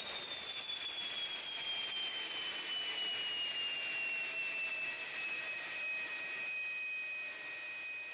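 Jet engine turbine whine over a steady rush of noise, its pitch falling over the first several seconds and then holding steady.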